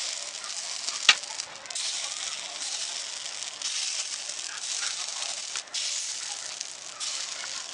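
Suji (semolina) appe batter sizzling in the hot oil of an appe pan as spoonfuls are dropped into its cavities, a steady hiss. A sharp click about a second in.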